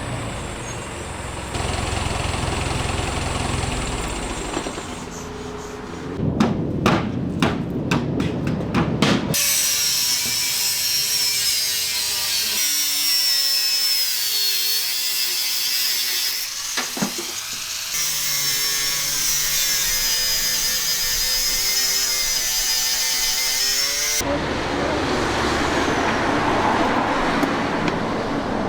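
Heavy-truck repair workshop sounds in several abrupt cuts: a quick run of sharp metal knocks, then a long steady power-tool whine that wavers slightly in pitch, then a rougher noisy stretch.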